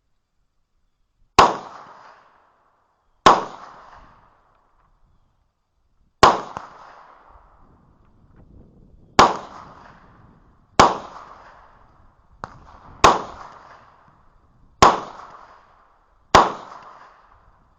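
Eight single shots from a 10mm Magnum Research 1911 pistol, fired slowly at uneven intervals of one and a half to three seconds, each with a short echoing tail. A smaller sharp click falls between the fifth and sixth shots. The pistol is cycling without a malfunction.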